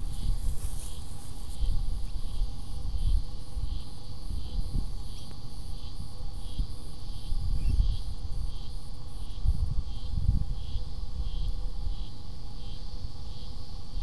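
Wind buffeting the camera microphone in low gusts, with an insect, likely a cricket, chirping in a steady rhythm a little under twice a second and a faint steady hum.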